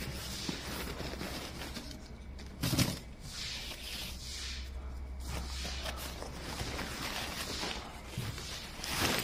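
Rustling and crinkling of a Nash Titan Hide Camo Pro bivvy's fabric and its carry bag as the folded bivvy and its frame poles are handled and lifted out, with a louder sharp handling noise about three seconds in and again near the end.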